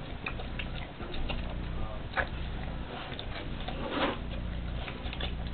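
A Rottweiler eating raw food: irregular wet chewing and crunching clicks, with two louder crunches about two and four seconds in, over a steady low hum.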